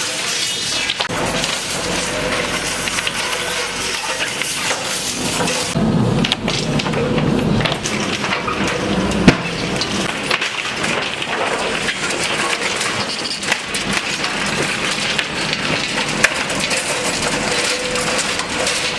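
Demolition work: a steady rough rumble of noise with scattered cracks and knocks, stronger for a couple of seconds around six seconds in, and one sharp bang about nine seconds in.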